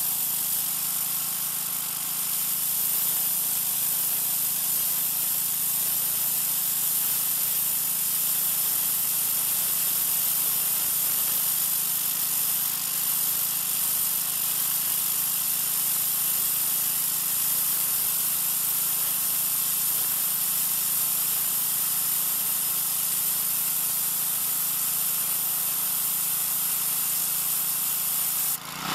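Troy-Bilt 2200 psi gas pressure washer running steadily, its high-pressure water jet from an oscillating tip hissing against concrete. The spray dips briefly near the end.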